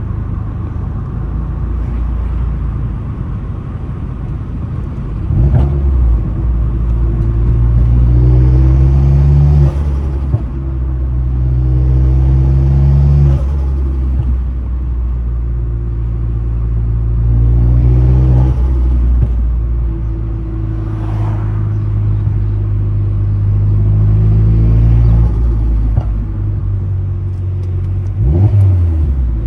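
Vauxhall Astra H VXR's turbocharged 2.0-litre four-cylinder engine pulling hard several times, its pitch rising through each gear and dropping at the changes. Short bursts at each lift-off fit turbo flutter, the compressor surge chatter when the throttle shuts on boost.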